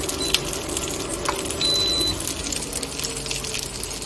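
Fish frying in shallow oil in a frying pan, a steady crackling sizzle. Two electronic beeps from the cooktop's controls cut through it, a short one near the start and a longer one about one and a half seconds in, as a burner is switched off.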